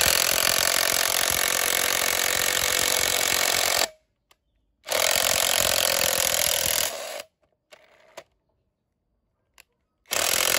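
Makita cordless brushless impact wrench/driver hammering a long self-drilling roofing screw into a block of wood. It runs in three spurts: about four seconds, a one-second pause, two more seconds, then a three-second pause before starting again near the end.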